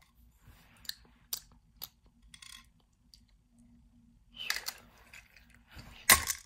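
Toy train engines being handled: a few light clicks and a rustle, then a louder knock about six seconds in.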